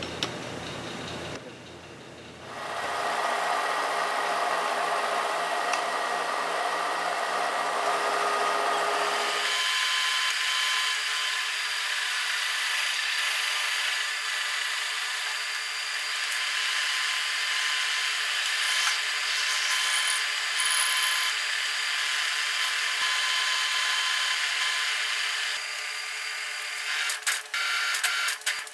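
Drilling machine starting up about two seconds in and running steadily, its drill bit cutting into a steel block clamped in a machine vise. The running sound changes about a third of the way in, and a few sharp clicks come near the end.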